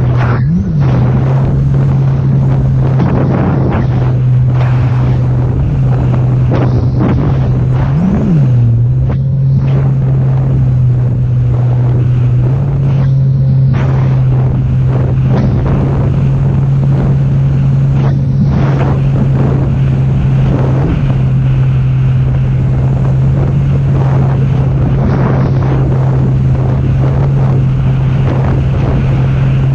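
Sea-Doo jet ski's supercharged three-cylinder engine running at a steady cruising speed, with wind rushing over the microphone and water noise. The engine note briefly rises and falls twice, near the start and about eight seconds in.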